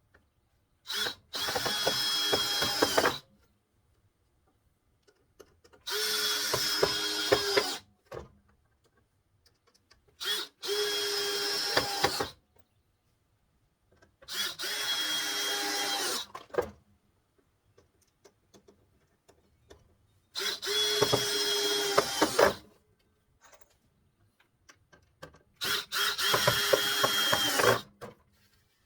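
Power drill driving wood screws into a wooden post, six separate runs of about two seconds each with a steady motor whine, a pause between each screw.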